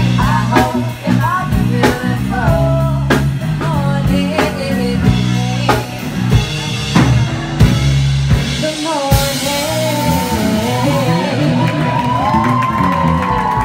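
Live band with a woman singing lead over drum kit, electric bass and electric guitar. About nine seconds in the drum beat gives way to a cymbal crash that rings on, and the singer holds a long high note over it as the song closes.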